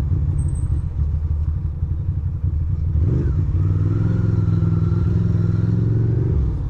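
Ducati Monster 620's air-cooled L-twin engine running at low speed. About three seconds in the revs rise and hold steady as the bike pulls ahead, then drop away near the end.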